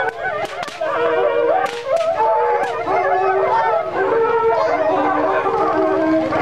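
High-pitched group singing of a traditional Andean fiesta song, voices holding long notes that step up and down in pitch.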